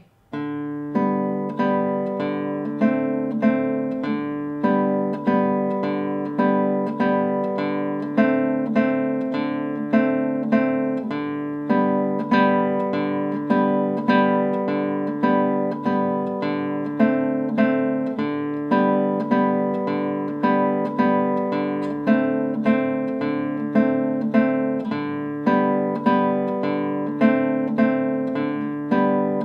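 Classical guitar playing a simple arpeggio in a steady three-count rhythm: thumb on the 4th string, then index and middle fingers free-stroking the 3rd and 2nd strings. The arpeggio alternates between open G and B and fretted A and C.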